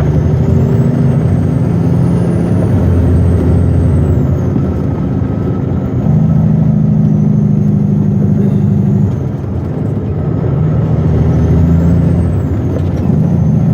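Western Star logging truck's diesel engine running under load. Its note steps up about six seconds in and dips briefly about nine seconds in.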